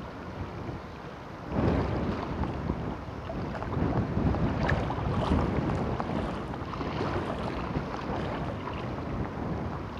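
Wind buffeting the microphone over a choppy sea, rising sharply in a strong gust about a second and a half in and staying gusty.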